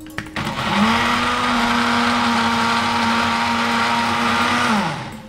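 Electric mixer-grinder blending a cooked tomato and beetroot puree with a little water. The motor spins up about half a second in, runs at a steady pitch for about four seconds, then winds down and stops near the end.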